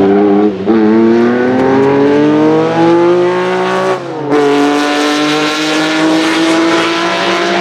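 Porsche 906 Carrera 6's two-litre flat-six racing engine accelerating hard, its pitch climbing through the revs. It shifts up about half a second in and again about four seconds in, then pulls up through the next gear.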